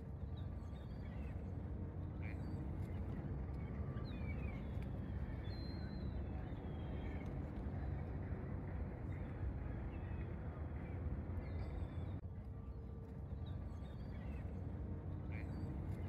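Faint bird calls, short chirps and whistles here and there, over a steady low rumble of outdoor ambience by a calm lake.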